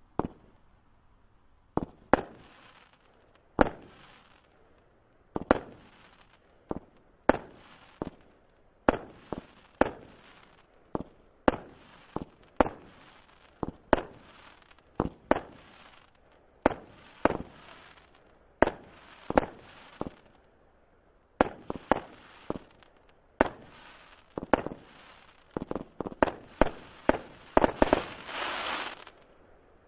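Pyromould 'Bad Wolf' 25-shot firework battery (cake) firing its shots one after another, a long series of sharp bangs about one every half second to second. Near the end comes a few seconds of dense crackling from the crackle-effect shots, then it stops.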